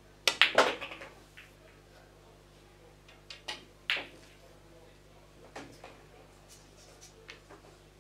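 Pool shot: the cue tip strikes the cue ball and it clacks into the object ball, a quick cluster of sharp clicks about half a second in, the loudest sound. A few more knocks come about three and a half to four seconds in, as the balls hit the cushions and the object ball is pocketed, then a few faint clicks.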